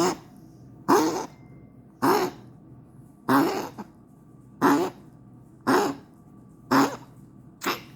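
A dog coughing over and over, about eight coughs roughly a second apart.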